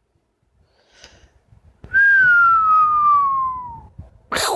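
Double yellow-headed amazon parrot giving one long, clear whistle that slides slowly downward in pitch for about two seconds, followed near the end by a brief loud harsh noise.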